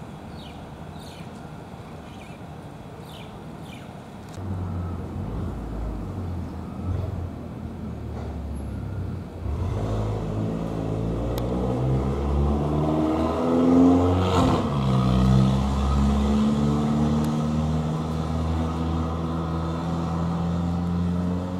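A motor vehicle engine running close by. A low hum sets in a few seconds in and grows louder, then rises in pitch as it revs about two-thirds of the way through before settling back to a steady idle.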